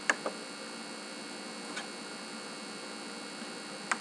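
Computer mouse clicking: a quick pair of clicks at the start, a faint single click near the middle and another pair near the end, over a steady faint hiss and hum of the microphone.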